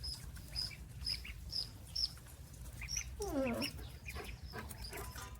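Ducklings peeping: a steady run of short, high chirps, about two or three a second, with one lower, falling call about three seconds in.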